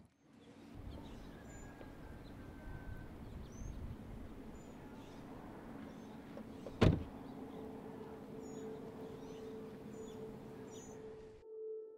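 Pickup truck idling with a steady low rumble, birds chirping faintly outdoors. One sharp clunk of the truck's door about seven seconds in. A steady low music drone comes in soon after.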